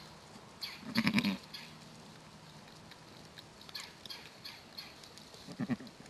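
Sheep giving two short, low bleats, one about a second in and another near the end, beside a newborn lamb being licked clean. Faint crackling of dry leaves comes between the calls.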